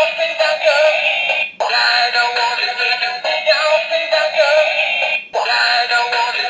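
Bootleg Ultraman-style transformation-device toy playing a song with singing through its small built-in speaker, thin and tinny with no bass, cutting out briefly about a second and a half in and again near the end.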